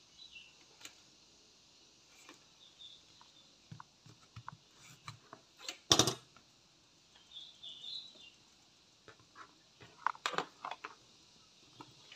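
Quiet handling noise of wires being desoldered and pulled off an amplifier circuit board: scattered small clicks and taps, with a sharp click about six seconds in and a quick run of clicks about ten seconds in.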